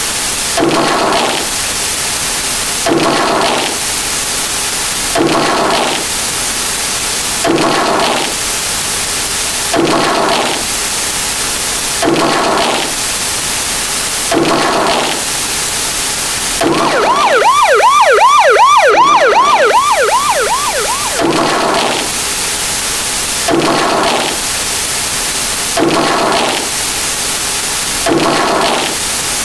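Siren sound effect stacked many times over into a dense, loud wash of noise that swells about every two seconds. In the middle, a fast warbling wail rises above it for about four seconds.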